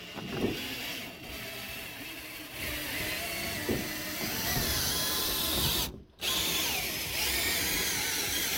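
Cordless drill driving a Stortz mechanical seaming machine along a metal standing seam, closing the seam with a single-fold first pass. It runs continuously, with a brief stop about six seconds in.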